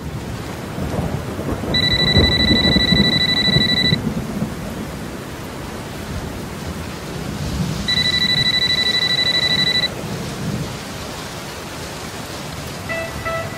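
Rain with rolling thunder, and an alarm clock sounding twice with a high, steady ring about two seconds long each time. Music starts near the end.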